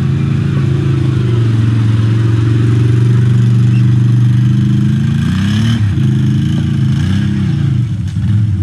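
Can-Am ATV's V-twin engine running as it crawls through deep trail ruts. It holds a steady pitch at first, then from about five seconds in rises and falls several times with the throttle.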